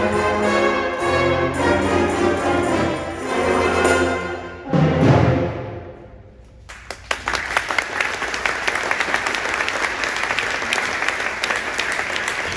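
High school concert band (brass and woodwinds) playing the closing bars of a tango, ending on a loud, low final chord about five seconds in that rings away. After a brief lull, audience applause starts and carries on steadily.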